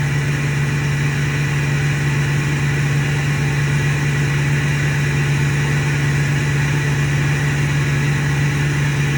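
Ford 6.4 Powerstroke V8 turbo-diesel idling steadily, with a low, even hum and the faint wind of the turbo above it.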